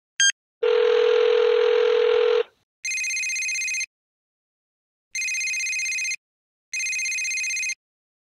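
A telephone ringing, as heard on a call: a short beep, a steady tone with hiss for about two seconds, then three electronic rings about a second long each with pauses between them.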